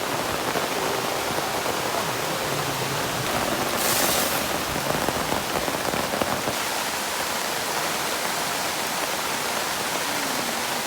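Heavy rain falling steadily, with a brief louder hiss about four seconds in.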